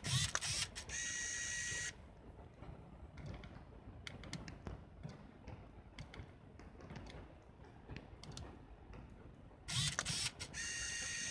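Canon Autoboy Epo compact film camera's built-in motor cycling: a quick run of clicks and whirring, then about a second of steady high-pitched motor whine that cuts off. It happens twice, at the start and again near the end.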